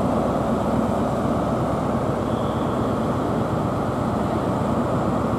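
Steady, even rumbling drone of trains idling at the station platforms.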